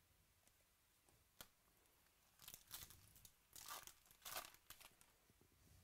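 Foil wrapper of a Topps Gold Label baseball card pack being torn open and crinkled by hand, heard faintly as a run of short rips and rustles from about two and a half to five seconds in. A single light tick comes about a second and a half in.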